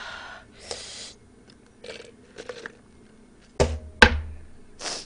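A person breathing hard through the mouth against the burn of very spicy noodles: quick hissing breaths, a few small mouth clicks, and two loud sudden bursts with a low thump about three and a half and four seconds in.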